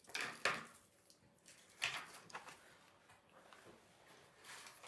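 A few brief rustling and handling noises from small objects being moved about on a table. The loudest comes about half a second in, another near two seconds and a last one near the end.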